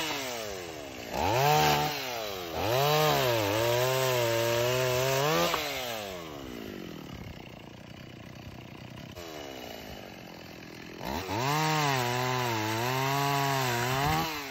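Petrol chainsaw cutting through a fallen tree limb. It revs up, and its pitch sags and recovers as the chain bites into the wood. It then drops back to a quieter idle for a few seconds before revving into a second cut near the end.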